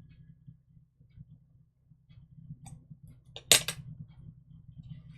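Paper-crafting handling at a desk: faint light taps and rustles, with one sharp click about three and a half seconds in.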